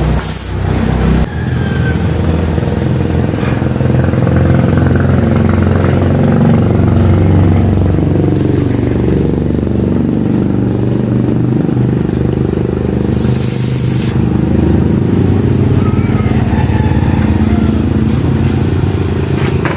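Engine running, its pitch drifting up and down, with short bursts of hiss about a second in and again about two-thirds of the way through.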